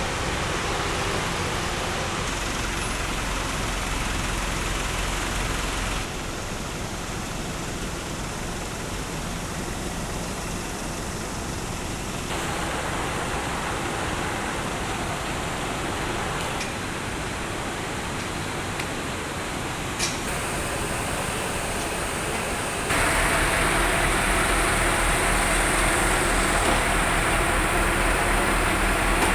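Steady engine and road noise of a delivery truck, its character changing abruptly three times and getting louder about twenty-three seconds in, with a brief click near the end.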